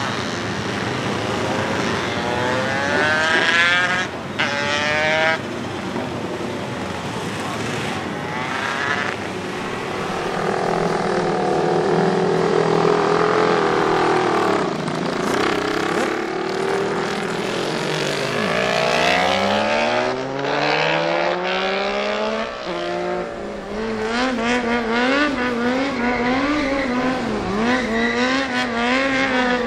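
Racing motorcycle engines, among them a Cagiva V592 two-stroke GP bike and a Ducati Desmosedici GP6 V4, revving hard through the gears as they pull away. About halfway through, one passes with its pitch dropping sharply. Near the end a stunt bike's engine revs up and down in quick pulses while it circles, with some tyre squeal.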